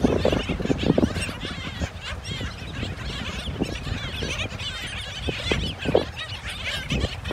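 A flock of seabirds at a beach nesting colony calling constantly: many short, overlapping high chirps and yaps at once, over a low rumble of wind and surf.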